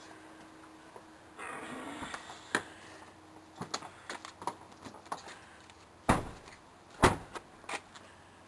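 A car door being opened, with clicks and handling rattles, then two loud thumps about a second apart, car doors slamming shut.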